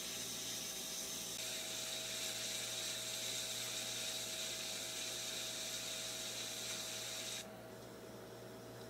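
Steady hiss of room tone under a faint, even electrical hum. The hiss drops abruptly to a softer level about seven and a half seconds in.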